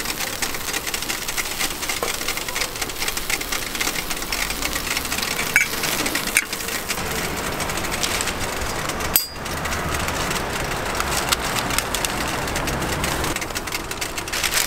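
Egg-and-toast sandwiches sizzling on a steel flat-top griddle, a steady crackling hiss. Metal tongs clack a few times as the sandwiches are lifted off.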